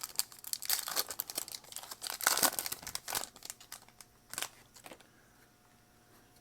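Plastic wrapper of a Topps baseball card pack crinkling and tearing as it is ripped open, with dense crackling for about three seconds, then a few single rustles.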